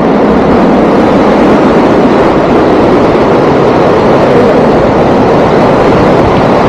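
Steady, loud rushing noise of wind blowing across the microphone, with no breaks or changes.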